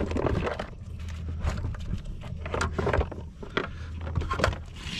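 Irregular knocks, taps and thuds on a plastic kayak as a freshly caught redfish is handled and laid out to be measured.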